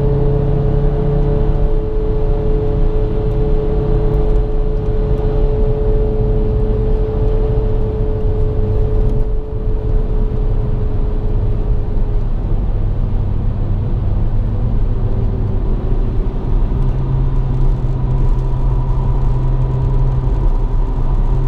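Stock 2007 VW MK5 GTI driving at road speed, heard from inside the cabin: the turbocharged 2.0-litre four-cylinder's steady hum mixed with tyre and road rumble. The engine's pitch sinks slowly over the first dozen seconds, and the low rumble eases off midway and comes back near the end.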